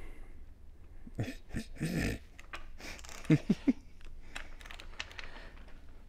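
A man straining against a tight drive-side bottom bracket cup, breathing hard with effort about a second in, then giving three short grunts a little past halfway.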